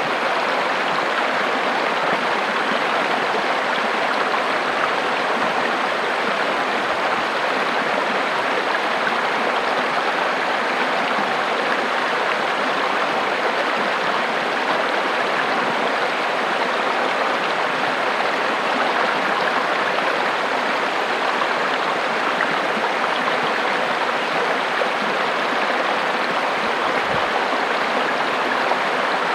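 River water rushing and splashing over rocks, a steady even flow.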